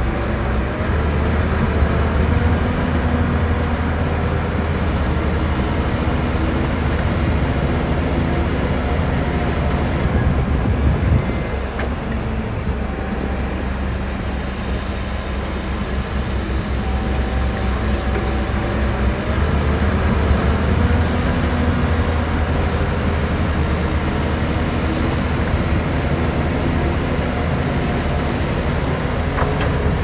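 Heavy diesel earthmoving machinery running, a continuous low engine rumble. It eases off about eleven seconds in and builds up again about eight seconds later.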